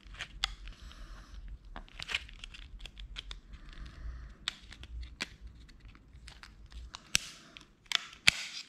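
Thin clear plastic blister tray crinkling and crackling as fingers work soft plastic shad lures out of it, with irregular crackles throughout and a few sharper snaps of the plastic near the end.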